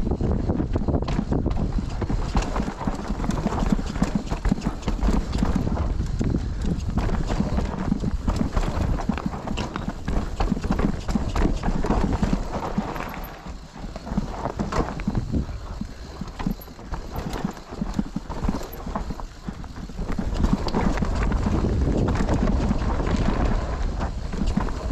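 Mountain bike descending a rough trail: a steady clatter of the chain, frame and tyres knocking over rocks and roots, over a heavy rumble of wind on the microphone. The clatter eases for a moment around the middle, then picks up again.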